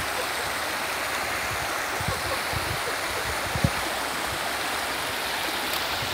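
Shallow rocky stream rushing steadily over stones, with a few faint low thumps, the sharpest about three and a half seconds in.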